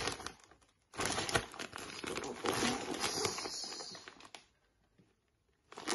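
Plastic bag of Forest Floor cypress-mulch reptile bedding crinkling as it is handled and turned over, the loose mulch shifting inside; it starts about a second in and stops about four seconds in.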